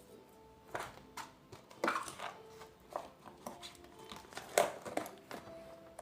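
Slime being squeezed and worked by hand, giving a string of irregular wet clicks and pops.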